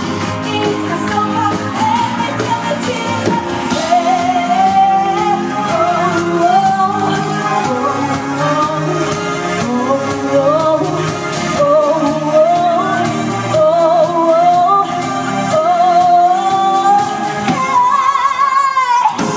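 A woman singing a pop song live over a band with a steady drum beat, ending on a long held note near the end.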